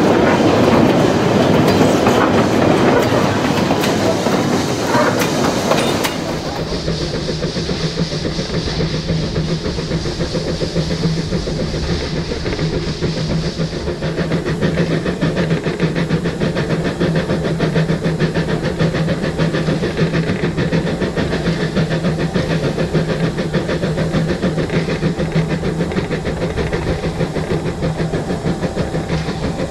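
Narrow-gauge steam locomotive and its train running. The first six seconds are a loud close rumble of the moving train, then the sound changes suddenly to the steady running noise heard from on the locomotive itself: rapid regular beats over a steady low hum, with a hiss of steam for several seconds.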